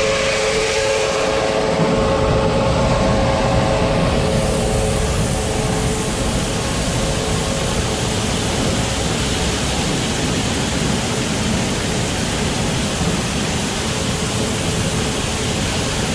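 Grain bin unload auger and floor sweep auger running, grain rushing through them in a steady mechanical drone. For about the first four seconds a motor's steady hum stands out, then it gives way to the even rush of the auger and grain.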